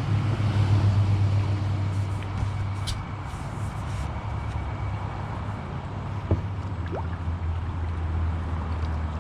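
A steady low motor hum that drops slightly in pitch partway through, with a couple of faint clicks.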